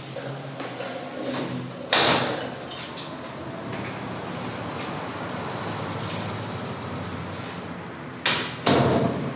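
A metal stairwell gate with ribbed plastic panels clanking loudly as it is unlocked and swung open about two seconds in, then banging twice as it is pulled shut and latched near the end. Steady street traffic noise sounds in between.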